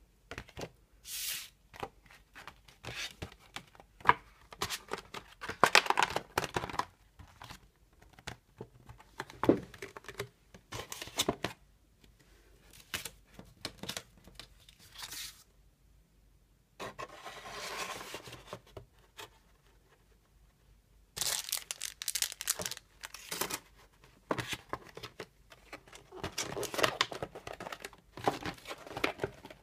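Paper and card being handled on a tabletop: irregular bursts of rustling, crinkling and light taps, with short pauses between them.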